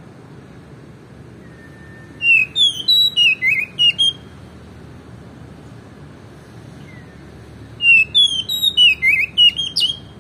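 Oriental magpie-robin singing: two phrases of quick, sharp whistled notes, each about two seconds long, the second coming about four seconds after the first.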